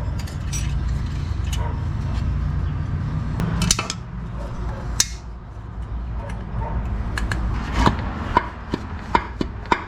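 Metal transmission parts clinking and knocking as they are handled and fitted, in scattered irregular clicks, over a low steady hum that fades after the first few seconds.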